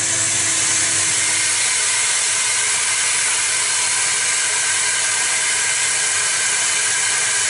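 Vacuum cleaner used as the CNC router's dust extraction, running on its own with a steady, even hiss; the router is not cutting.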